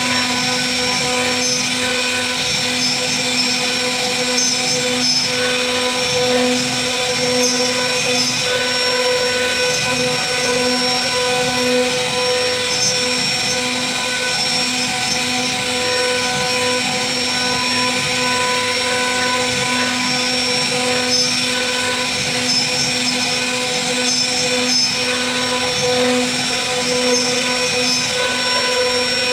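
CNC router spindle running steadily as it carves a wooden relief panel: an unbroken machine whine made of several steady tones, with a faint cutting hiss beneath.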